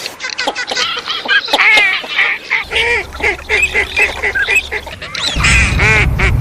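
A flock of wild ducks, common teal among them, calling in quick overlapping quacks and short arched notes. A low rumble sits underneath from about two and a half seconds in, growing stronger near the end.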